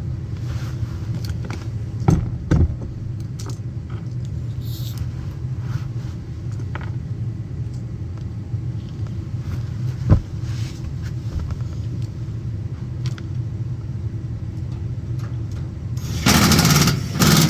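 A steady low mechanical hum, with a few sharp clicks and knocks, and a loud rushing noise lasting about a second near the end.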